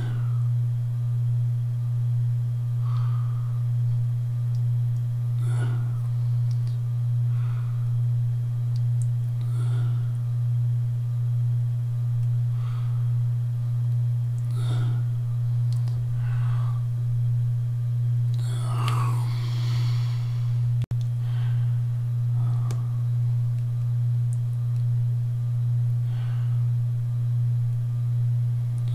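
Steady low electrical hum at a single pitch, loud throughout, that cuts out for an instant about twenty-one seconds in. Faint soft handling sounds from fingers and tweezers on a small plastic model part come every second or two.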